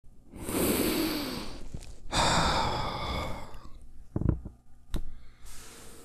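A man sighing heavily twice, long drawn-out exasperated exhales, the second with some voice in it, followed by a couple of soft knocks and a lighter breath near the end.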